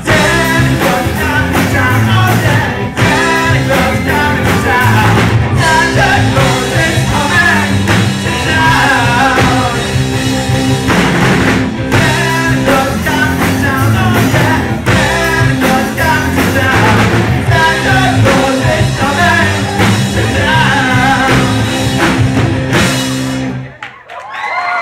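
Live rock band playing loud: electric guitars, bass and drum kit with a singer. The song ends suddenly near the end.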